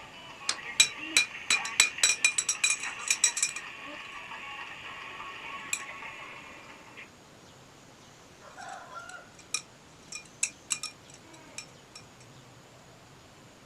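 Sharp clicks and clinks of hard objects: a quick run of them in the first few seconds, then a few scattered clicks later, over faint steady tones that stop about halfway through.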